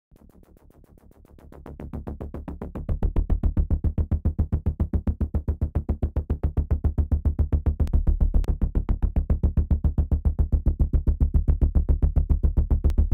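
Pulsing synth bass from the Serum software synthesizer: a fast, evenly repeated low note with a distorted, filtered tone, building up in level over the first three seconds and then holding steady.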